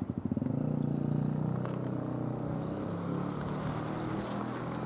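A motor vehicle's engine running, a steady low drone that pulses rapidly at the start.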